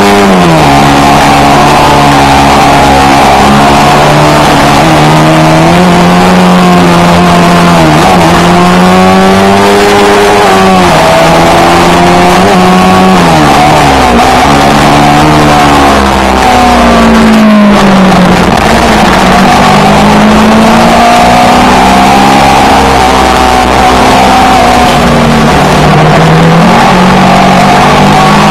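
Yamaha R3 motorcycle's parallel-twin engine through an Akrapovic GP exhaust, running under way. The engine note climbs and drops again and again as the bike accelerates and shifts gears, over a steady rush of wind noise.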